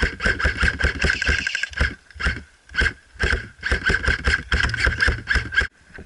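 Rhythmic heavy thumping, about two to three a second, of running footsteps jolting the action camera's microphone; it stops suddenly near the end.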